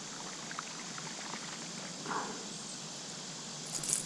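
Steady, even rush of creek water, with a few faint clicks and rustles and a louder scratchy rustle near the end.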